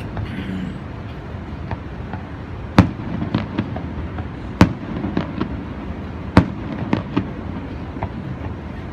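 Distant aerial fireworks shells bursting: about ten sharp bangs at uneven spacing, starting about three seconds in, the loudest two about halfway through, over a steady low background noise.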